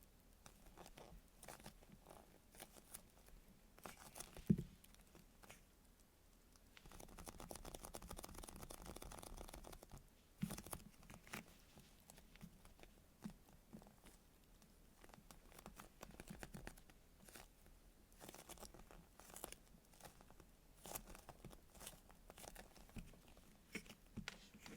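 Soft foam squishy toys being squeezed and handled close to the microphone: faint squishing, crinkling and small taps. There is one sharper knock about four and a half seconds in, and a steady rustle of about three seconds starting around seven seconds in.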